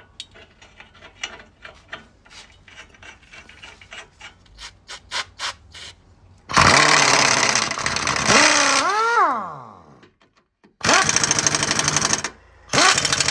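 Nuts and a bolt being started by hand on a new lower ball joint, with light metal clicks. About six seconds in an aerosol spray hisses for about two seconds, ending in a brief rising-then-falling whine. Then an impact wrench hammers in two bursts, running down the ball joint's nuts on the lower control arm.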